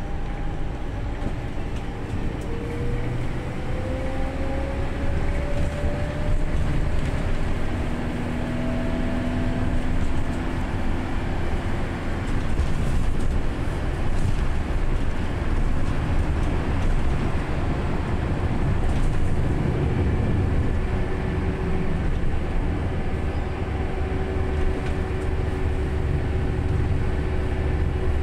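Steady low rumble of a moving road vehicle, heard from inside, with a faint whine that rises in pitch a few seconds in as it picks up speed.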